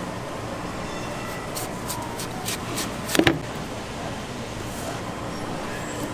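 Knife striking a cutting board in a quick run of about six sharp taps, the last two loudest, over a steady background hum.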